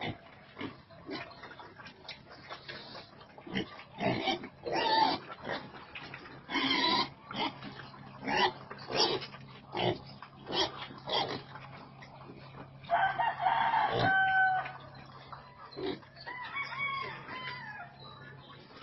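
Young pigs crowding in a pen, giving a run of short harsh grunts and squeals. About thirteen seconds in comes a longer, steady high call lasting over a second, and a few seconds later a rising-and-falling call.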